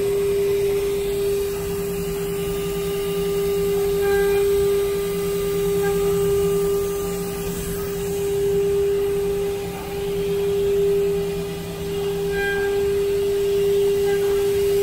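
CNC router spindle running with a steady, level-pitched whine, with machine noise that swells and eases every couple of seconds.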